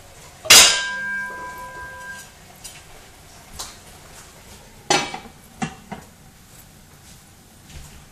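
Metal cookware clanging: a loud clang that rings on for over a second, then a metal lid set down onto the steaming cooking pot with a clank and a couple of lighter knocks as it settles, covering the pot to simmer.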